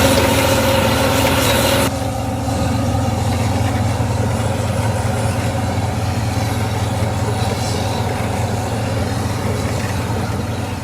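Heavy diesel engine of a machine at the stuck-bulldozer rescue, running steadily with a deep drone. It is louder and hissier for the first two seconds, then drops a little and settles into an even run.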